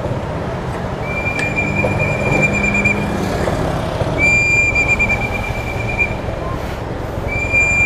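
Motorcycle engine running with a low, steady rumble while stopped in traffic. Over it a high, steady tone sounds three times, each lasting about two seconds.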